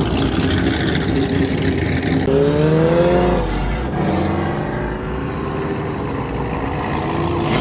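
Corvette V8 engines idling, one of them revved about two seconds in: the pitch climbs, then drops back, followed by a gentler rise a little later.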